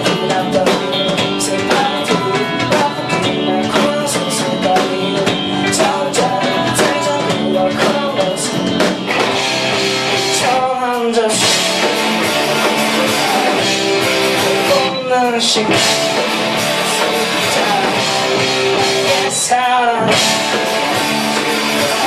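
Punk rock band playing live: electric guitar, bass and drum kit with singing. Three quick falling pitch sweeps cut through the music, about nine, fifteen and twenty seconds in.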